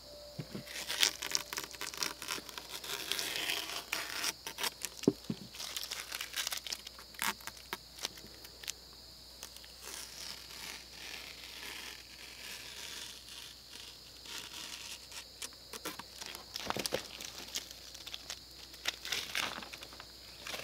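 Paper being handled and torn over a spray-painted board: scattered crinkles, tears and scrapes, thinning out in the middle, over a steady faint high whine.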